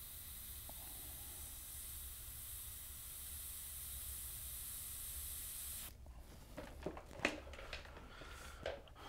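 Gravity-feed airbrush spraying: a steady hiss of air and paint that cuts off suddenly about six seconds in. After it come a few light clicks and knocks, one sharper and louder than the rest.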